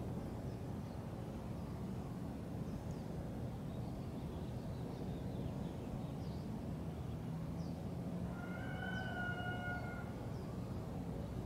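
Outdoor background of a steady low rumble like distant traffic, with faint bird chirps. About eight seconds in, a steady, flat horn-like tone sounds for about two seconds.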